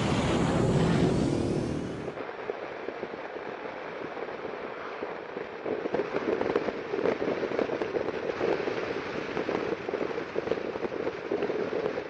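A loud intro sound cuts off about two seconds in, giving way to wind buffeting and crackling on a rider's microphone while riding a Yamaha XMAX 300 scooter.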